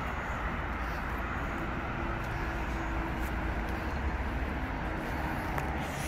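Steady low rumble of distant road traffic, even throughout with no single event standing out.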